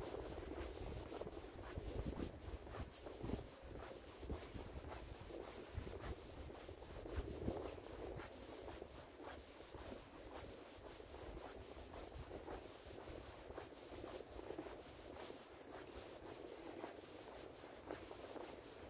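Faint footsteps on a walking trail with scratchy rustling, a run of small irregular scuffs and clicks; a little wind rumble near the start.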